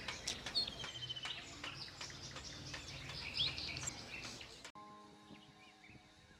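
Outdoor ambience of small birds chirping, with a few light knocks and a low hum. About three-quarters of the way through it cuts off abruptly to a quiet passage of soft, sustained music tones.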